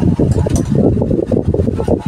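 Spoon stirring a thick, creamy fruit salad in a plastic basin: wet squelching and sloshing with a few light scrapes.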